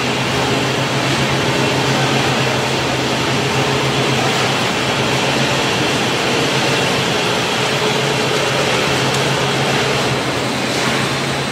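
Fried snack-chip production line running: steady, even machinery noise with a constant low hum.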